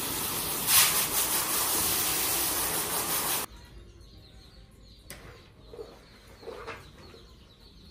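Water spraying from a handheld sprayer hose onto a dog in a stainless-steel wash tub: a steady hiss that cuts off suddenly about three and a half seconds in. After it stops there are only a few faint knocks.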